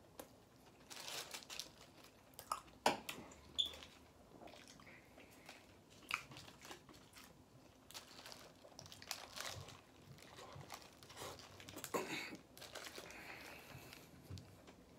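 A man chewing and biting into a double-meat burger, with its paper wrapper crinkling in his hands; short irregular bursts.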